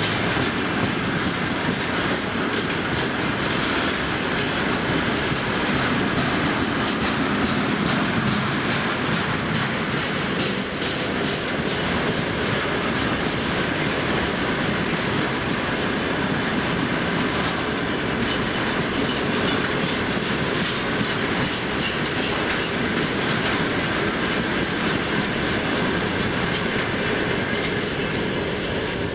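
Freight train of railway tank cars rolling past at speed: a steady rumble of steel wheels with continual clickety-clack over the rail joints.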